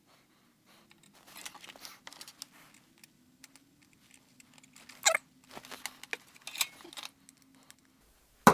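Soft crackling and scattered small clicks of hand-soldering component leads on a circuit board, as solder melts on the pads under the iron, with one sharper click about five seconds in.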